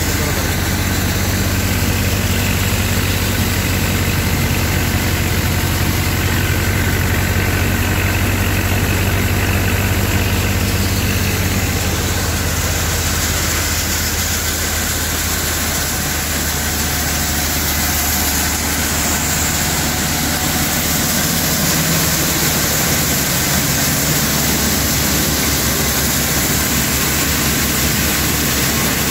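Vishwakarma tractor-driven crop thresher running at full work: a steady, loud mechanical drone of the tractor engine under load, mixed with the whir and rush of the threshing drum and fans.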